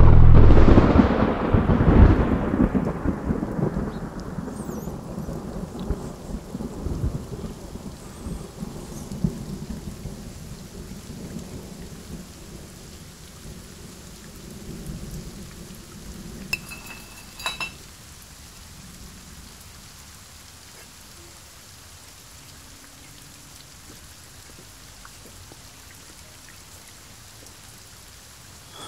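A thunderclap followed by rolling thunder that dies away over about ten seconds, with rain falling throughout and growing fainter. A short ringing clink past the halfway point.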